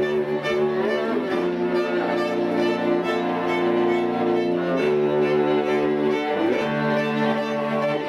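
String quartet of two violins, viola and cello playing long held chords that change about every one and a half to two seconds.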